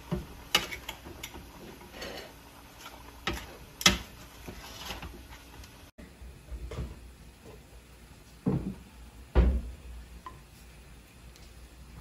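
Tongs and a spatula stirring a noodle, seafood and vegetable stir-fry in a frying pan, with irregular sharp clicks and knocks of the utensils against the pan. After a cut about halfway through, a few dull thumps and light handling sounds.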